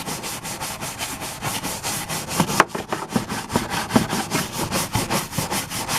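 A brush scrubbing a greasy riding lawn mower surface coated in degreaser, in rapid back-and-forth strokes, several a second.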